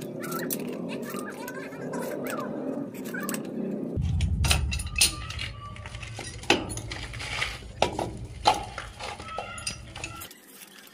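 Metal clicks and clinks of a pipe wrench gripping and turning brass pipe fittings as they are tightened, in irregular strokes that are thickest through the middle.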